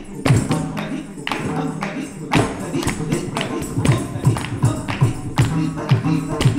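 Live Bharatanatyam dance music: quick rhythmic percussion and the dancer's stamping bare feet with jingling ankle bells, over a steady low held note.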